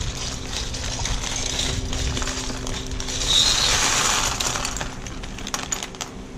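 Plastic zip-top bag crinkling as it is handled and tipped, then a pour of loose LEGO bricks clattering onto a cutting mat, loudest about three to four seconds in, with scattered clicks of single pieces after.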